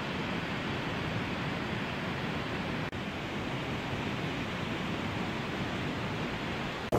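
Steady rushing of fast white water in a turbulent mountain river, with a momentary break about three seconds in.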